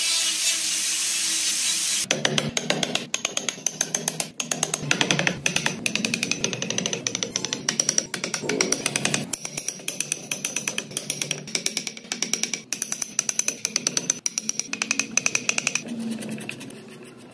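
An angle grinder with a sanding disc runs against the wooden truck body for about two seconds. It stops, and a quick, uneven series of sharp taps follows as chisels are driven and pared into hardwood.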